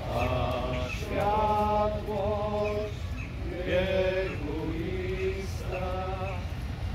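Men's voices singing a slow religious chant in the open air, long held notes that step up and down in pitch, over a steady low rumble.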